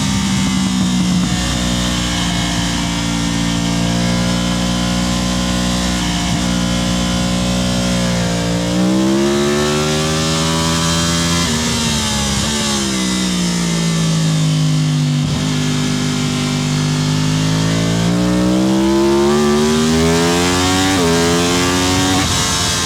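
Superbike racing motorcycle engine under way on a circuit. It holds a steady note, then climbs in pitch, drops sharply at gear changes about 11 and 21 seconds in, and sinks gradually before climbing again as it slows and accelerates.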